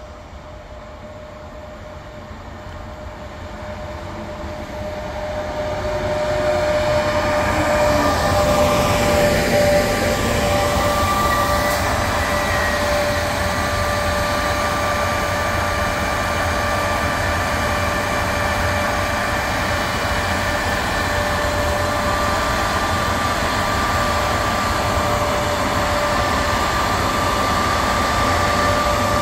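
Electric passenger train arriving on the near track, its rumble growing louder over about seven seconds and then holding steady. Behind the rumble is a steady high whine from the FS E.464 electric locomotive as it rolls slowly past.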